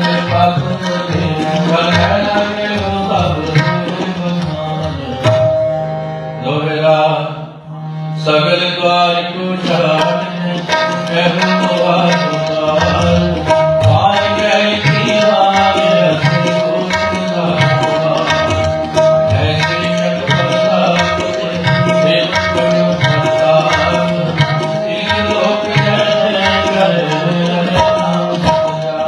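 Harmonium and tabla playing devotional kirtan music: steady harmonium notes over a continuous tabla rhythm. The music thins briefly about six to eight seconds in.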